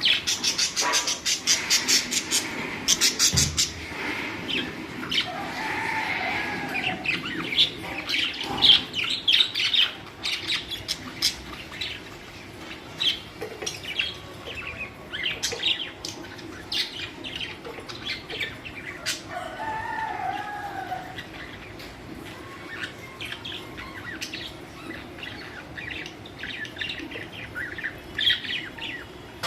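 A flock of budgerigars chirping and warbling in a quick, continuous chatter of short notes and clicks. It is busiest in the first ten seconds. Twice, a lower arched call stands out, a few seconds in and again around the middle.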